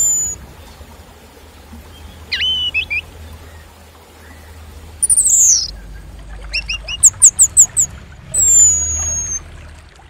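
Songbird calls played to stir orange-headed thrushes into song: thin, high, falling whistles, a short call about two and a half seconds in, a falling sweep at about five seconds, and a quick run of about six notes near seven seconds. They come in separate phrases with a faint hiss underneath.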